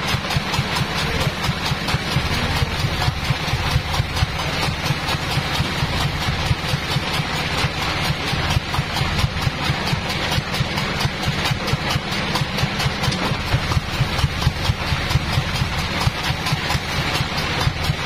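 Band sawmill's drive engine idling steadily with a fast, even chugging pulse, the mill running without cutting.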